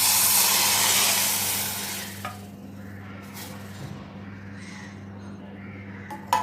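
Herbal decoction boiling hard in a pan on a gas stove, a loud even hiss of bubbling that dies away about two seconds in. A short clink near the end.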